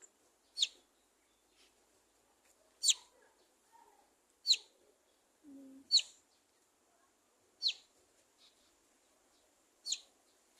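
A bird calling, six short high-pitched chirps that each fall sharply in pitch, spaced about one to two seconds apart.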